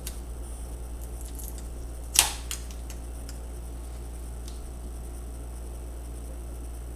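A sharp plastic snap about two seconds in, followed quickly by a smaller click and a few faint ticks later: a snap-fit plastic clip of a laptop's screen bezel giving way as it is pried loose with an edge. A low steady hum runs underneath.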